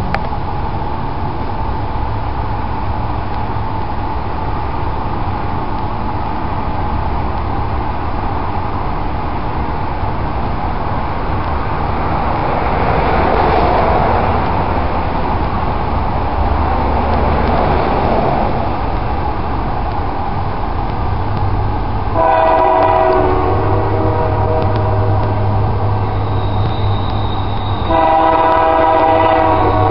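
Diesel freight locomotive's air horn sounding as the train approaches: one long blast from about two-thirds of the way in and a second starting near the end. Before the horn, a broad rumble swells and fades.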